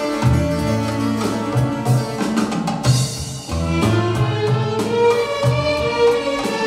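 Middle Eastern taqsim music for belly dance: an instrumental melodic improvisation with low beats under it, dipping briefly about three seconds in.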